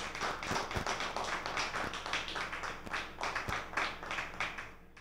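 A small group of people clapping in a round of applause, dense irregular hand claps that die away near the end.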